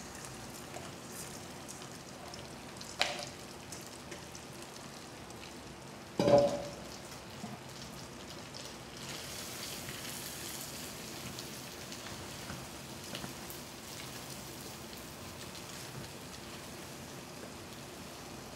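Washed rice sizzling as it sautés in a steel pot with browned sausage and a little bacon fat: a steady frying hiss. There is a short knock about three seconds in and a louder metallic clatter about six seconds in.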